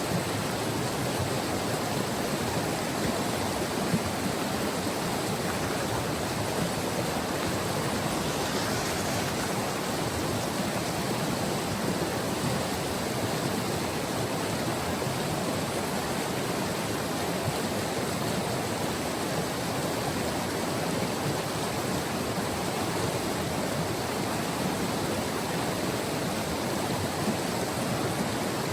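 Steady rushing and churning of a glacial river (the White River) flowing over rocks.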